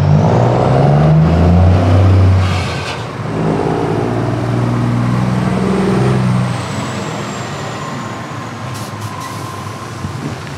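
Scania tractor unit with trailer pulling away: its diesel engine revs up, drops back at a gear change about two and a half seconds in with a short air hiss, revs up again, then fades as the truck drives off.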